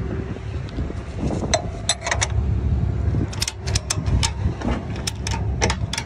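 Low steady rumble of a farm vehicle driving, heard from inside the cab, with repeated sharp rattles and knocks as it travels over the road.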